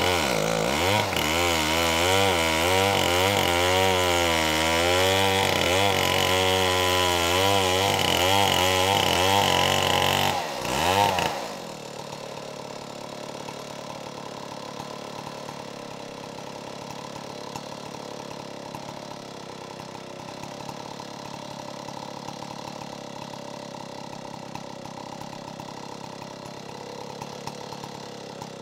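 Chainsaw on an Alaskan chainsaw mill ripping lengthwise through a driftwood log, running loud under load with its pitch wavering as the cut goes. About 11 seconds in it flares briefly and drops away to a much quieter steady sound for the rest.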